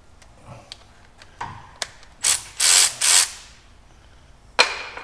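Cordless ratchet running in three short bursts about two seconds in, driving down the bolt of an ECM wiring-harness connector. A few light clicks come before the bursts, and a single sharp knock comes near the end.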